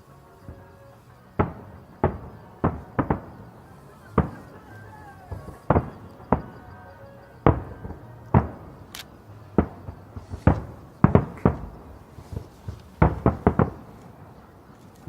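Aerial fireworks shells bursting in an irregular volley: about twenty sharp bangs, each with a short echo, coming thickest near the end.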